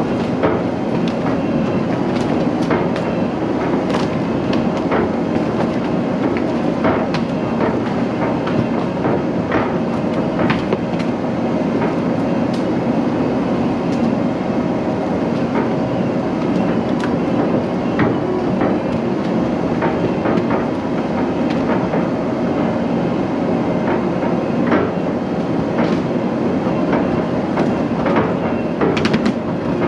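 Diesel engine of a rubber-tired logging skidder running steadily under way on a rough woods trail, with frequent clanks and rattles from the machine.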